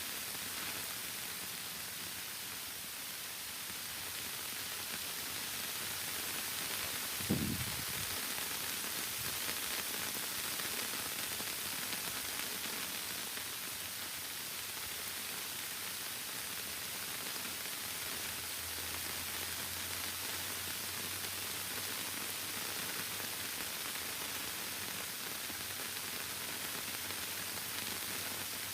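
Rain falling steadily as an even hiss, with a single short low thump about seven seconds in.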